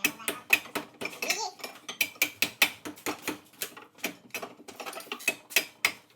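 Hand ratchet wrench clicking in quick strokes, about three or four clicks a second, as bolts are run down.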